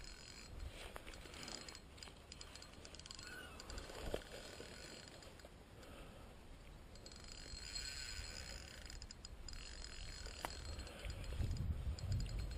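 Spinning reel cranked in spells to retrieve a lure: a faint whirring with fine, rapid clicking that starts and stops several times, with a low rumble rising near the end.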